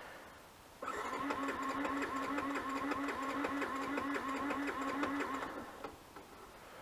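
Motorcycle's electric starter cranking the engine in an even rhythm of about four pulses a second for nearly five seconds, stopping without the engine catching: the broken-down bike refuses to start.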